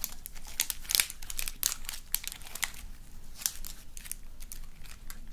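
Black magnetic slime being stretched and squeezed in the hands, giving irregular sharp clicks and pops from the air bubbles trapped in it; the pops come thick at first and thin out toward the end.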